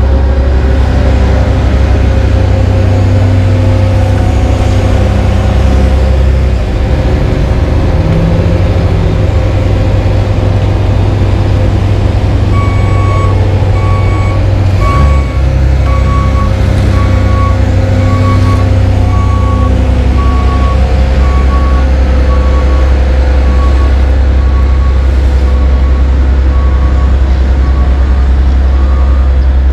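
Diesel engines of asphalt paving machines, a paver and roller compactors, running with a steady low rumble. About halfway through, a backup alarm starts beeping about once a second as a machine reverses.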